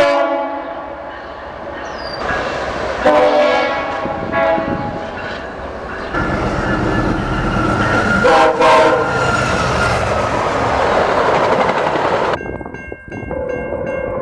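Train horns blowing multi-note chords in several short blasts, then a train passing close with a loud rush of wheel and engine noise and another horn blast partway through. About two seconds before the end the sound cuts suddenly to a fainter, steadier background with a distant horn note.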